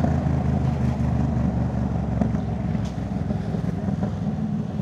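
Yamaha MT-07's parallel-twin engine running through a full Jeskap aftermarket exhaust while riding: a steady, deep exhaust note that eases off slightly about three seconds in.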